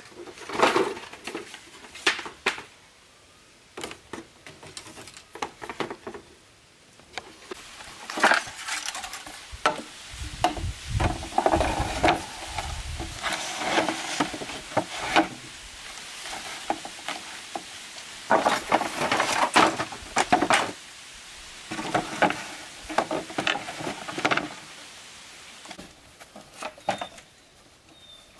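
Hollow bamboo poles knocking and clacking against each other as they are handled and stacked into a wall, in irregular clusters of sharp knocks with quiet gaps between.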